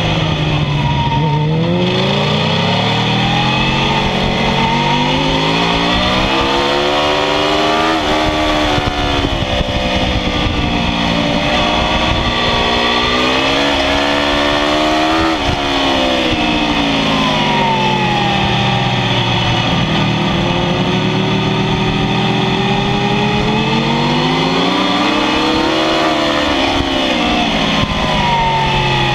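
2004 Kawasaki ZX-10R's inline-four engine at full track pace, revs climbing hard and falling back several times as the rider accelerates, shifts and brakes for corners. There is a sudden drop in revs about halfway through.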